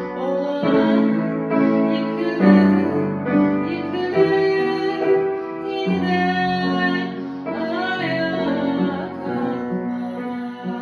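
A woman singing a slow ballad with piano accompaniment, her held notes wavering with vibrato.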